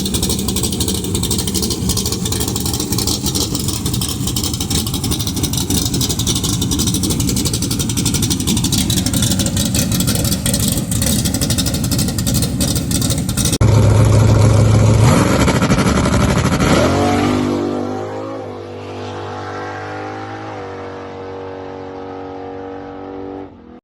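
Dodge Dart's big-cam, high-compression Gen III Hemi V8 running, loud and rough with closely packed exhaust pulses. About 14 seconds in the sound changes abruptly to a clearer engine note that is loudest just after the change. It climbs in pitch as the engine revs up, holds at the higher pitch, and cuts off just before the end.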